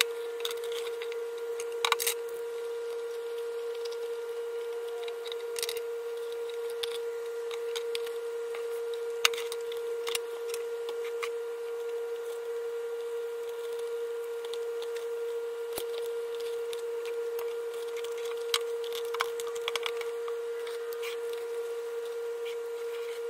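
Hand tools being loaded into the pockets of a fabric tool belt pouch: scattered clicks, knocks and rustling as metal and plastic tools go in. A steady hum runs underneath.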